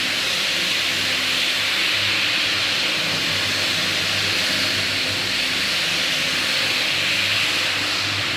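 Floor buffer running with an 80-grit sanding screen on a hardwood floor: a steady hiss of abrasive over a low, even motor hum.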